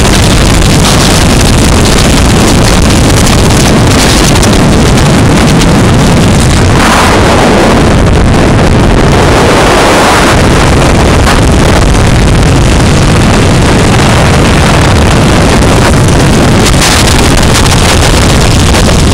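Harley-Davidson Iron 883's air-cooled V-twin running at road speed under heavy wind buffeting on the microphone, very loud throughout. A stronger rush of wind hiss comes through for a few seconds midway.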